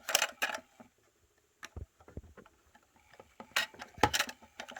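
Plastic clicks and knocks from handling a small battery-powered makeup-brush washing machine, in a cluster at the start and another near the end, with a quieter stretch of faint ticking between.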